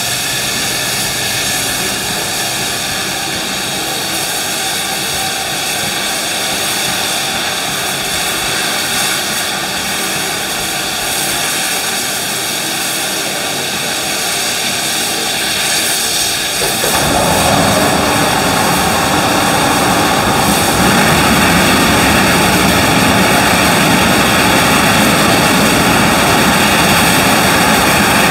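NSW 38 class Pacific steam locomotive 3801 hissing steadily. About seventeen seconds in, a much louder rush of steam starts as steam is blown off low on the engine, growing again a few seconds later and holding steady.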